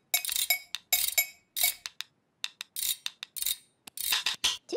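Kitchen spoons struck and clattered over and over, a quick uneven run of sharp clinking taps, several a second, with a bright ring.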